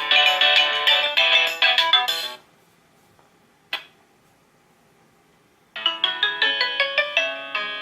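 Nokia N95 built-in ringtones: a melodic ringtone plays and stops about two and a half seconds in. A single click sounds in the pause, and a ringtone starts again near the end.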